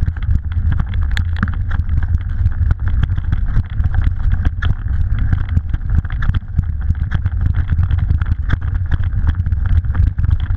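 Mountain bike ridden over a rough grass track: a steady rumble of wind and tyre noise on the action camera's microphone, with frequent small rattles and knocks as the bike jolts over the bumps.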